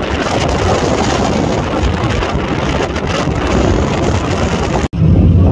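Steady rushing noise of wind and choppy harbour water, with a motorboat speeding past. Near the end it cuts off abruptly and gives way to a low steady hum.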